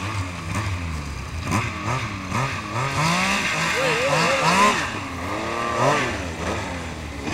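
Snowmobile engine revving, its pitch rising and falling over and over as the throttle is worked, climbing highest and loudest about four and a half seconds in.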